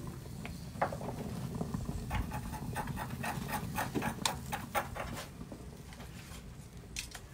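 Beef and wild garlic leaves sizzling on a hot grill grate, with a dense run of sharp crackles and pops about two to five seconds in, over a low steady rumble.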